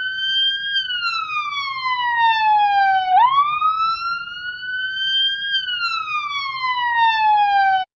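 Ambulance siren wailing: a single tone that slowly sweeps down, swoops back up about three seconds in, and sweeps down again, over a low rumble. It cuts off just before the end.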